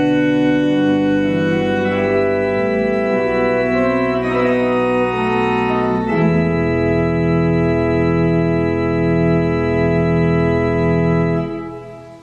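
Pipe organ playing sustained chords that change every few seconds; from about halfway a low note repeats roughly once a second under the held chord. Near the end the music stops and the sound dies away.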